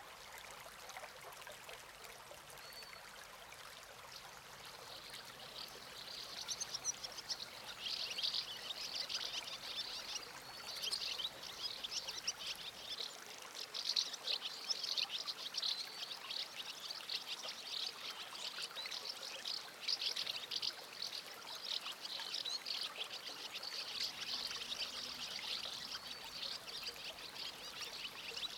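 Faint, dense high-pitched crackle of trickling water, louder from about six seconds in.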